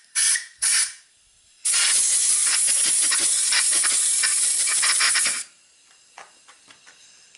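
Compressed-air blow gun blasting air through the chambers of a black-powder revolver cylinder: two short hissing bursts, then one long blast of about four seconds that cuts off, followed by a few faint clicks.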